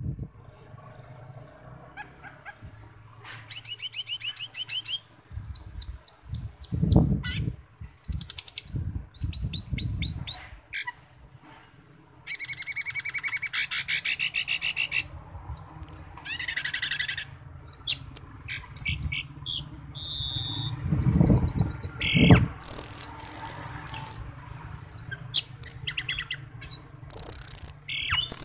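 Caged Asian glossy starling (cucak keling) singing a loud, varied song of fast trills, falling whistled notes and sharp chirps, in phrases with short gaps between them. A single brief knock sounds about three-quarters of the way through.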